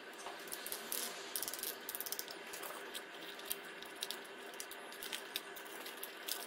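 Small plastic clicks and rattles as hands handle an RC truck's chassis parts, wiring and connectors. A quick run of ratchet-like clicks comes a little over a second in, followed by scattered single clicks.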